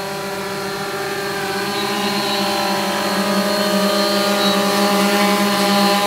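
X8 octocopter's eight brushless motors and 15-inch carbon-fibre propellers humming steadily in flight, growing louder as the craft comes closer.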